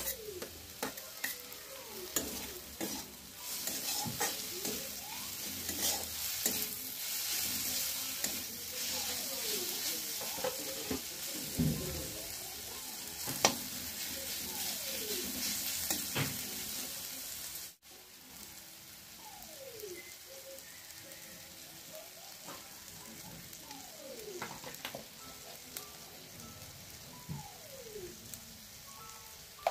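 Curry ingredients sizzling as they fry in a pan while being stirred, with scattered clicks and short scraping strokes. A little over halfway through the sound cuts abruptly to a quieter, softer sizzle.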